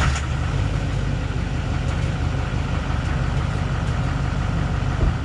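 GMC Sierra 2500HD's 6.6-litre Duramax LMM turbo-diesel V8 idling steadily, heard at the tailpipe of a 4-inch MBRP filter-back exhaust with the muffler deleted.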